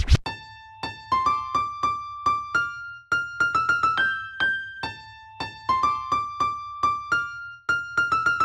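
Background music: a solo piano melody of single struck notes that climb step by step, the phrase starting over about halfway through.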